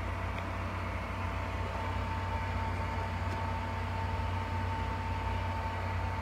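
Small egg incubator's fan and motor running: a steady low hum with a thin, even whine above it.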